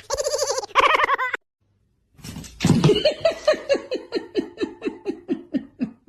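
Laughter in two bursts with a short silent break between them. The second is a long run of 'ha' pulses, about four a second, sliding down in pitch and tailing off.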